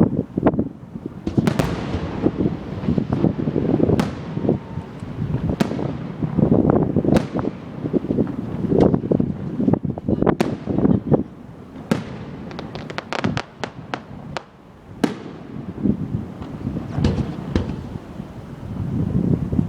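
Loud fireworks display: aerial shells going off one after another, each a sharp bang with a rumbling echo, with a rapid run of crackling pops about two-thirds of the way through.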